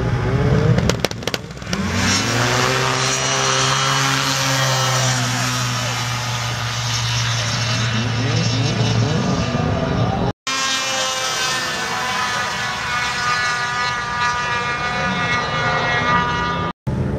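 Several snowmobile engines revving up and racing off a drag-race start line, their pitch climbing as they accelerate, followed by a steady mix of snowmobile engines running. The sound drops out abruptly for a moment twice near the end.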